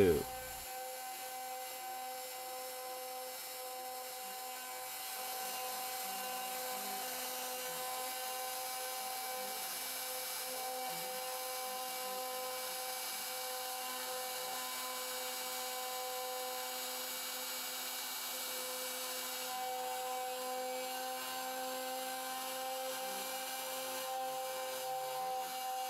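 CNC router spindle running a 1/4-inch ball-nose bit through a roughing cut in a wooden board: a steady motor whine over the hiss of the bit cutting wood, a little louder from about five seconds in.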